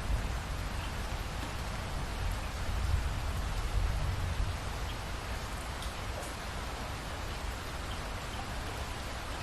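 Steady rainfall, an even hiss of drops, with a low rumble underneath that swells about three to four seconds in.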